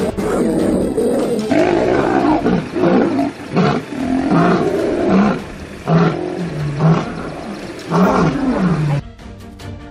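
Big cats growling and roaring in a run of rough, rising and falling calls, with music coming in near the end.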